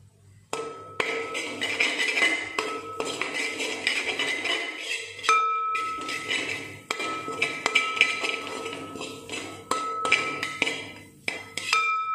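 A spatula scraping and knocking against the bottom and sides of an aluminium cooking pot while stirring a dry scrambled-egg mixture, in irregular strokes. Some strikes leave the pot ringing with a clear tone.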